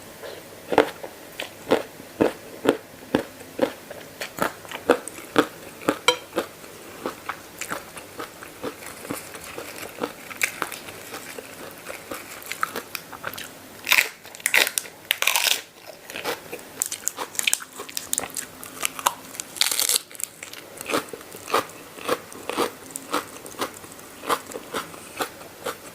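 Close-up crunchy chewing of a homemade spicy Thai noodle salad (mee yum) with pork rinds, a steady run of crunches about twice a second. There are louder, longer bites about halfway through and again a few seconds later.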